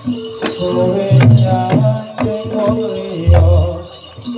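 Live Javanese gamelan music for a jathilan dance: sharp drum strokes about twice a second over steady ringing metallophone tones, with a deep low boom a little after three seconds in.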